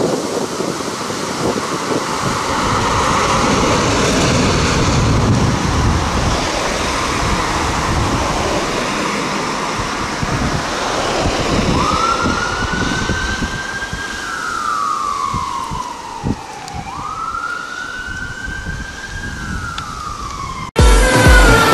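Traffic noise, then an ambulance siren on the wail setting from a Mercedes ambulance: two long sweeps, each rising quickly and falling slowly. Music cuts in suddenly near the end.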